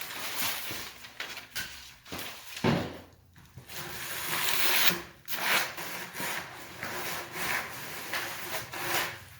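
A hand squeegee rubbing over bubble-wrap duct insulation in repeated strokes to flatten it out.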